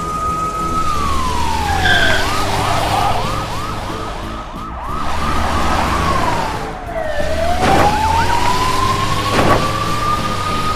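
Police-style siren: a slow wail that rises and falls, switching about two seconds in to a fast yelping warble for a few seconds, then back to the slow rising wail. Two short knocks are heard in the second half.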